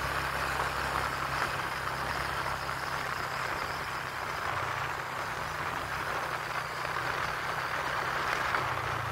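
Motorcycle engine running at a steady cruise, a low hum under a steady rush of wind and road noise as it rides along.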